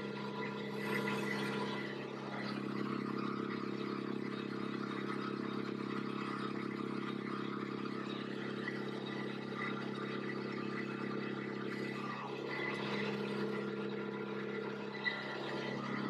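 Engine of a Woodland Mills WC88 wood chipper running steadily with no wood feeding, its note shifting slightly about two seconds in and again about twelve seconds in.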